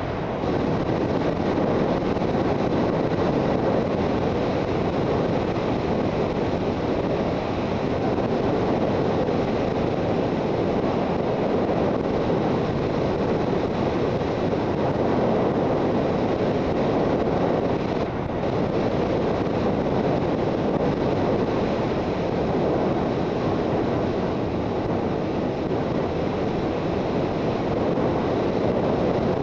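Steady rush of wind on the microphone of a Suzuki GSX650F riding at speed, mixed with its inline-four engine and road noise. There is a brief slight dip about 18 seconds in.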